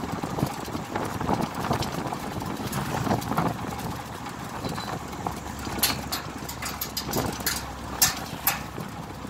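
Wind and road noise from riding in the open bed of a moving pickup truck, with a run of sharp clicking knocks in the second half.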